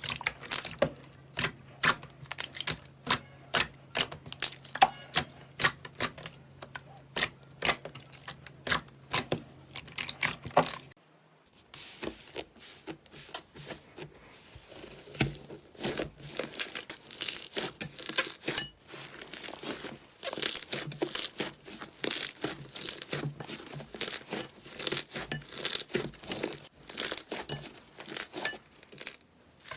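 Slime being squeezed and pressed by hand, making sharp clicks and pops about twice a second over a faint steady hum. About eleven seconds in the sound changes to a denser crackling and crinkling as the slime is worked.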